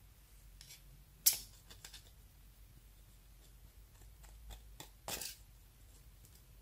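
Eyeshadow cake being broken up in its plastic compact: one sharp crack about a second in, a few light crunches, and a short crumbling scrape about five seconds in.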